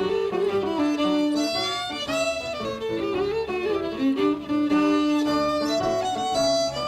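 Fiddle playing a melody over an accompaniment, in recorded Irish music.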